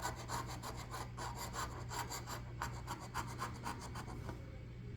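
Coin scraping the coating off a scratch-off lottery ticket in quick back-and-forth strokes, about five a second. The strokes stop shortly before the end.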